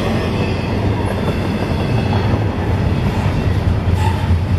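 Double-stack intermodal container train rolling past close by: a steady, loud rumble of freight cars' steel wheels on the rails.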